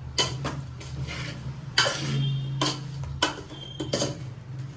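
A metal spoon stirring spice-coated chopped vegetables in a large metal pot, scraping and knocking against the pot at uneven intervals over a low steady hum.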